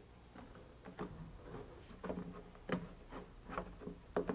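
Rubber sleeve of an Inserta Tee connection being pressed and worked by hand into a cut hole in a polyethylene manhole wall: a run of faint, irregular knocks and clicks of rubber and hands against the plastic, the loudest a quick pair near the end.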